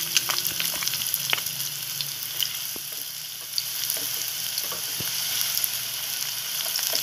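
Sliced onions sizzling in hot cooking oil in a stone-coated frying pan, stirred with a wooden spatula: a steady frying hiss with scattered small pops and spatula clicks.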